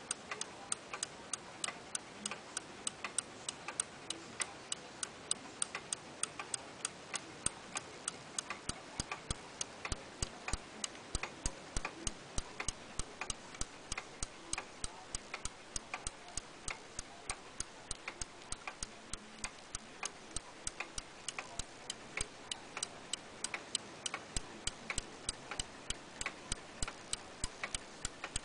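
Lux Bluebird pendulette wall clock running, its movement giving a fast, even ticking.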